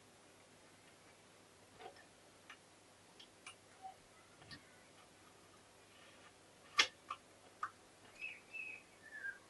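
Faint, scattered metallic clicks and taps as gearbox parts are fitted by hand into a Honda MT5 crankcase half, with one sharper click about seven seconds in.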